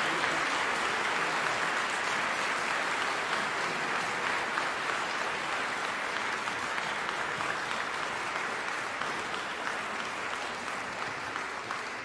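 Audience applauding, the clapping gradually fading toward the end.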